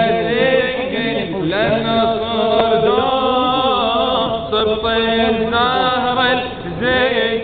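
A male reciter chanting an Arabic latmiyah, a Shia mourning lament, in long held melodic lines.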